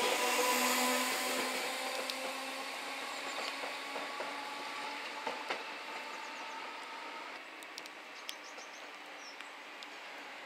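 A Merseyrail electric multiple unit pulling out and moving away, its traction motors whining over the running noise and fading over the first several seconds. The background then turns quieter, with a few faint high chirps and ticks near the end.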